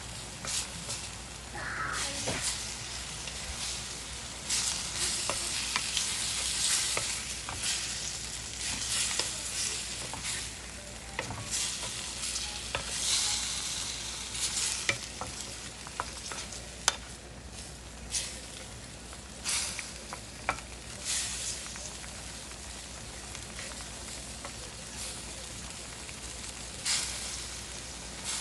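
Oyster pancakes frying in oil in a pan, a steady sizzle that swells and fades, louder in the first half, with scattered sharp clicks.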